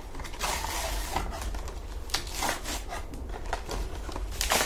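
Product packaging being handled and opened by hand: a rustling stretch near the start, then scattered crackles and snaps, the sharpest near the end.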